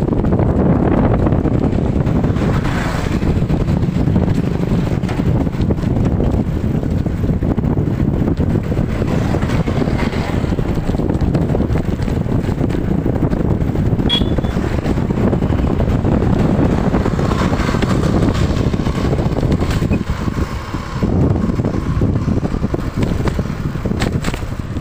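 Steady, loud rumble of riding an antique bike along a road: mostly wind buffeting the microphone, mixed with the bike's running noise.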